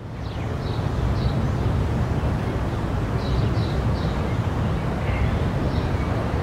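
Wind buffeting the microphone as a steady low rumble, fading in over the first second, with a few short, high bird chirps over it.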